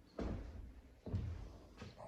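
Footsteps: three heavy steps at an even walking pace, each a dull thump with a short scuffing tail.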